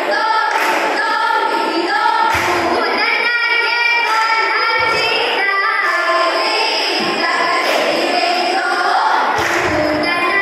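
A group of women singing a vanchipattu, the Kerala boat song, with a strong rhythm, punctuated by occasional thumps.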